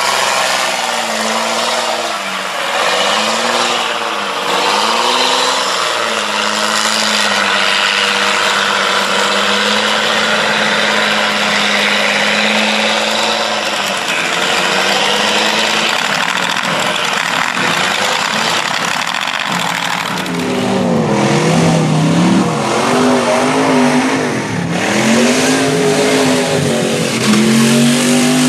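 A mud-bog truck's engine run hard, the revs swinging up and down, then held high and steady for several seconds, then revving up and down again and louder from about two-thirds of the way through, over a constant rushing noise.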